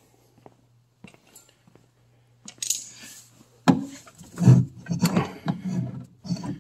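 A few light clicks, then from about two and a half seconds in, rustling followed by a run of clinks, clunks and thumps as someone climbs into the cab of a 1948 Chevrolet and sets a foot on the brake pedal.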